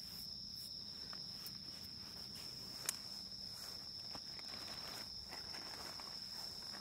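A steady high insect trill throughout, with scattered soft scuffs and a single sharp click about three seconds in.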